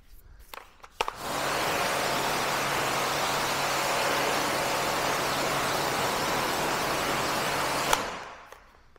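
Pressure washer spraying a jet of water onto a car windshield to rinse off pre-wash: a steady hiss with a low hum beneath. It starts with a click about a second in and stops with a click near the end.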